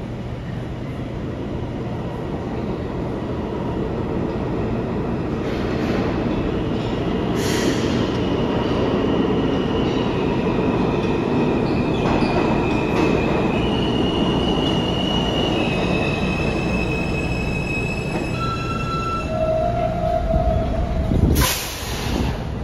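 Alstom R160A subway train pulling into an underground station, its rumble on the rails building as it comes in. Steady high whining tones shift in pitch in several steps as it brakes, and a short sharp hiss of air comes near the end as it stops.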